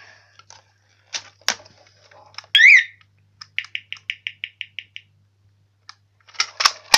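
A fire alarm pull station being pulled down with two sharp clicks. The alarm system then gives one loud electronic chirp, followed by a quick run of about ten short beeps at one pitch, about seven a second. Handling clicks and rustling come near the end.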